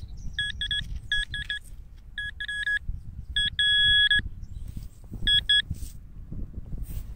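Nokta handheld pinpointer beeping in quick clusters of two or three short beeps, about once a second, with one longer steady beep around four seconds in, as its tip is worked through the soil of a dig hole. The beeping signals metal close to the probe tip.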